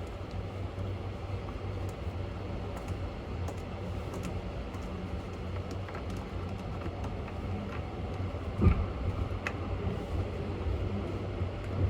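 Steady low hum inside a car of a 285 series sleeper electric train, with scattered faint clicks and one dull knock about three quarters of the way through.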